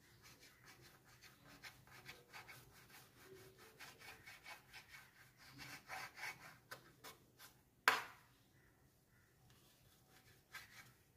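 Kitchen knife slicing through stacked chapathis onto a wooden chopping board: a faint run of quick scraping cuts, then one sharp knock about two thirds of the way through, the loudest sound, followed by a few more faint strokes.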